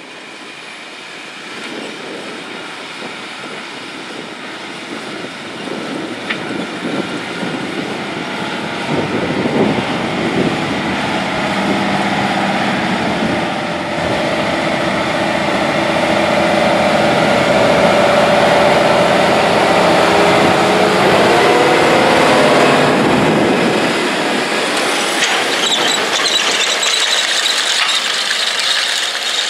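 Case IH Steiger Quadtrac 580's diesel engine working under load as it pulls a strip-till bar, growing louder as the tractor approaches, loudest after the middle, then easing off slightly. Near the end the clatter of the tillage bar's shanks and rollers working the soil comes through.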